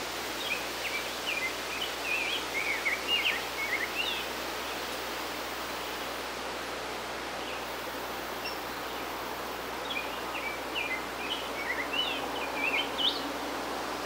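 Rose-breasted grosbeak singing its quick warbled song: one phrase about half a second in and another about ten seconds in, over a steady rushing background noise.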